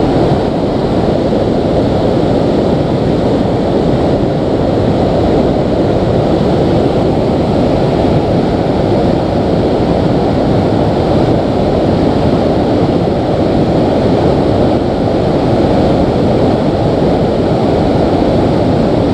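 Shallow rocky river running over rapids: a loud, steady, low-pitched rush of water.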